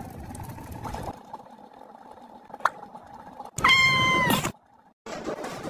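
A cat meowing once, a single drawn-out meow of about a second, with a slight drop in pitch at the end, about three and a half seconds in.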